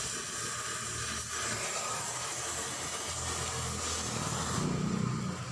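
Gas welding torch flame hissing steadily at the exhaust pipe under the car. The hiss stops about four and a half seconds in, giving way to a low hum.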